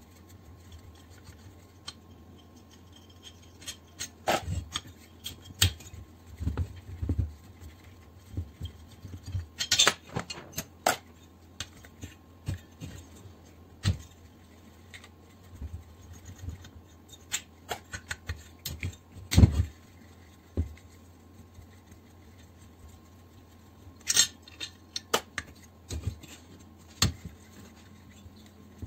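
Irregular metallic clicks, clinks and scrapes from a folding hex key set working the bolts of a finned air compressor head, with occasional knocks as the head and pulley are handled on the bench. One knock about two-thirds of the way through is the loudest.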